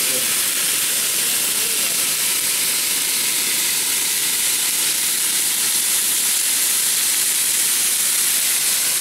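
Seasoned steaks sizzling on a hot ribbed grill surface: a steady, even hiss.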